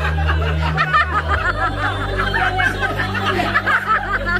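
A crowd of people chattering and laughing over background music with a low bass line that changes note about a second and a half in.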